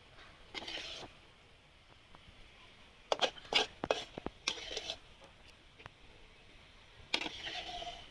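Kitchen utensils and dishes clinking and knocking, a cluster of sharp clinks about halfway through, with brief scraping sounds near the start and near the end.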